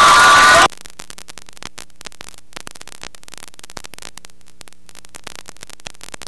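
Music and crowd noise cut off abruptly under a second in, leaving a dense crackle of static over a faint mains hum.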